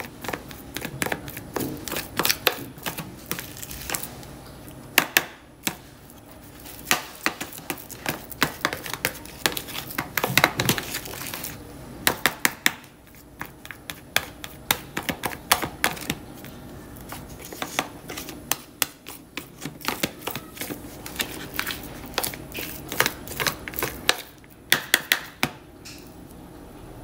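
Metal spoon mashing and mixing soft vegetable-and-liver mash in a plastic tub: irregular clicks and scrapes of the spoon against the plastic, with quick runs of strokes.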